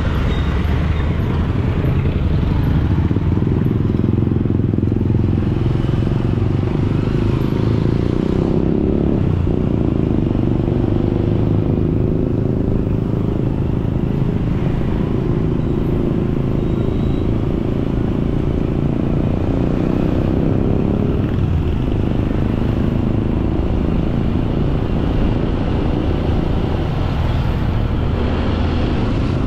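Motorcycle running steadily at riding speed, its engine and the wind and road noise making a constant low drone.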